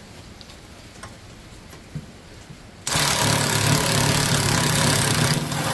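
Milwaukee cordless impact driver starting about three seconds in and running steadily for about three seconds as it backs out a bolt on the snowblower's belt cover, then stopping near the end. A few small handling clicks come before it.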